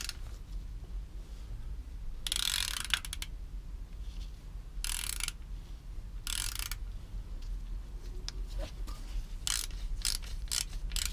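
Socket ratchet clicking as a 13 mm socket winds the oversized sump drain nut back into a motorbike's oil pan after an oil change. There are a few separate bursts of clicking, then quicker short strokes in the last couple of seconds.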